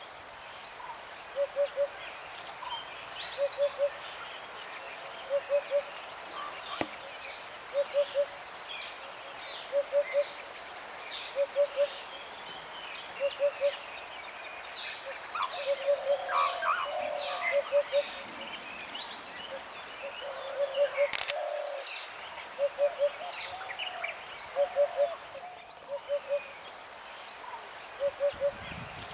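Wild birds calling over a steady background hiss. A low three-note call repeats regularly about every second and a half, with many higher chirps and whistles above it. A single sharp click comes about two-thirds of the way through.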